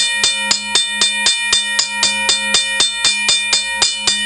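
12-volt DC railway crossing bell ringing, its electromagnet-driven striker hitting the gong about four times a second so that the rings run into one another. It cuts off near the end.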